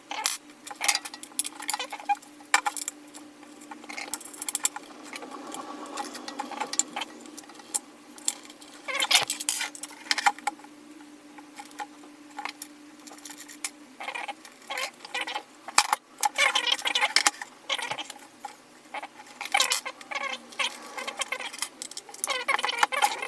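Screwdriver tip scraping, poking and clicking through skateboard grip tape over the deck's bolt holes, in short irregular bursts. A steady low hum underneath stops about two-thirds of the way through.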